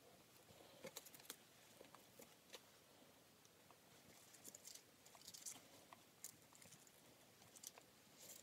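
Near silence, with faint irregular rustles and small clicks as fabric is folded and smoothed by hand on the sewing machine bed.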